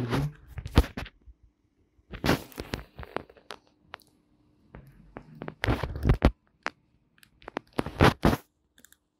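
Gloved hands handling metal implant instruments, a hex driver being worked into an abutment: four short clusters of crackling, scraping clicks over a faint steady hum.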